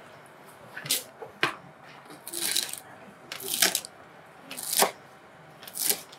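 Knife chopping celery on a plastic cutting board: about six crisp cuts, roughly a second apart.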